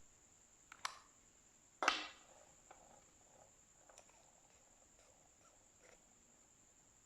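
Faint handling sounds of small objects: a sharp click a little under a second in, a louder knock with a short rustling tail about two seconds in, then a few light ticks, over a steady high-pitched whine.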